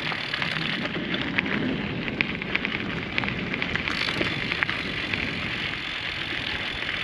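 Vehicle tyres rolling slowly over loose gravel: a steady crunching crackle of stones, over a low engine rumble.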